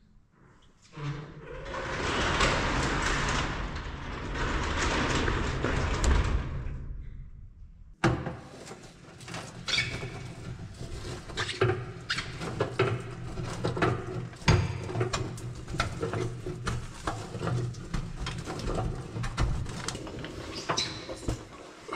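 An overhead garage door runs along its tracks for about six seconds with a loud, even rumble. After a cut come scattered small clicks and knocks of hands and tools working under a pickup truck.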